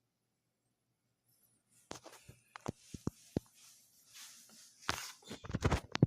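Handling noise: irregular clicks, knocks and rustling, starting about two seconds in and coming thickest near the end.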